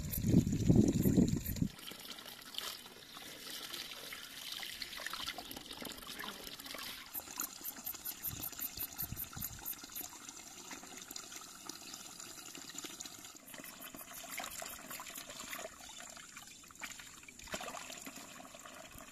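Spring water trickling steadily from a metal pipe into a stone trough while fresh herbs are rinsed in a bowl of water, with louder, lower swishing in the first couple of seconds.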